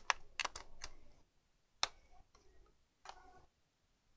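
Sharp clicks and snaps of a laptop's plastic casing being handled and prised apart: a quick cluster of about five in the first second, then single clicks about two and three seconds in.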